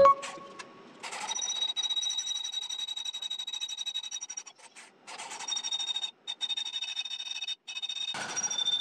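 Hand-held electric drill with a 5 mm high-speed-steel stainless-steel bit boring into a stainless steel square tube, running with a high steady whine that stops and restarts briefly several times as the trigger is eased. A sharp knock right at the start.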